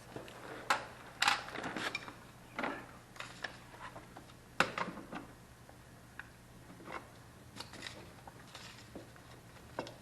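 Irregular knocks, clicks and short scrapes of tools being handled during wall layout work, with the sharpest knocks about a second in and again near the middle.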